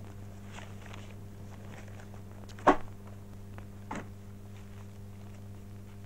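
A newspaper being handled and shaken open, with a sharp paper snap a little under three seconds in and a softer one about a second later. A steady low electrical hum runs underneath.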